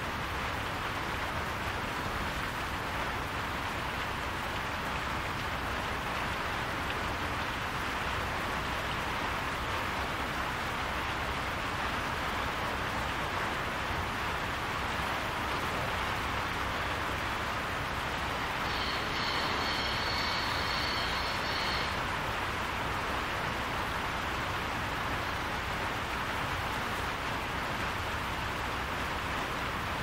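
Steady rain falling on a barn roof, an even hiss. About two-thirds of the way through, a high pitched sound with several tones sounds over the rain for about three seconds.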